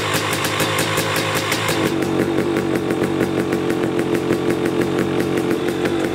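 KTM 250 SX two-stroke dirt bike engine idling steadily at the silencer, a fast, even popping run of firing pulses. Its note shifts slightly about two seconds in.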